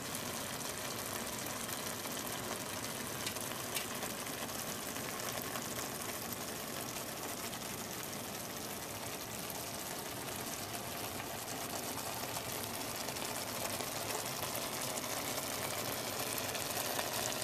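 Curry sauce with canned salmon simmering in an open skillet: a steady bubbling sizzle.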